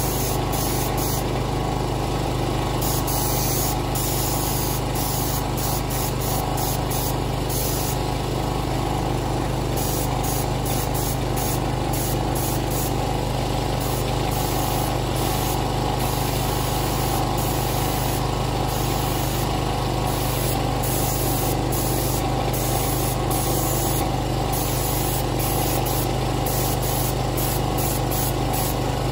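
Compressed-air paint spray gun hissing in short spurts, on and off, as paint is sprayed, over the steady running of a small petrol generator powering the air compressor.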